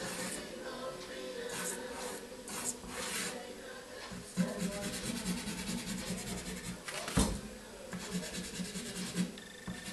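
Dry pastel stick scratching and rubbing across paper in short strokes, over background music. A single sharp knock about seven seconds in.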